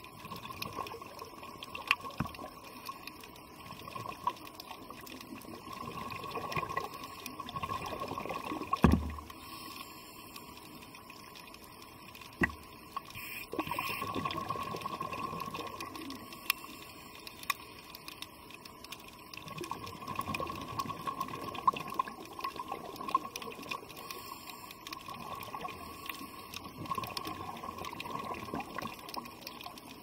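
Underwater sound of a diver's exhaled air bubbling and gurgling in swells every six or seven seconds. A steady faint hum runs underneath, and there are two sharp knocks, the loudest about nine seconds in and another a few seconds later.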